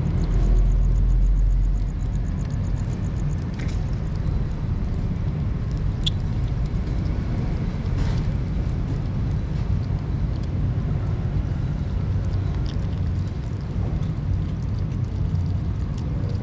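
Three kittens chewing and lapping wet food from a plastic container close to the microphone, heard as scattered small clicks. Under it runs a steady low rumble, heaviest in the first two seconds.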